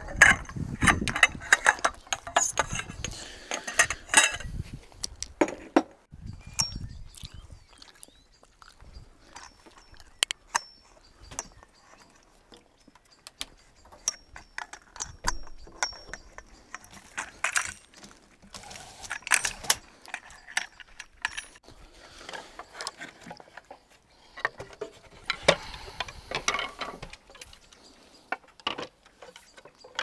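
Camping gear being taken down and packed: irregular metallic clicks, knocks and rattles that come in bursts, busiest in the first few seconds.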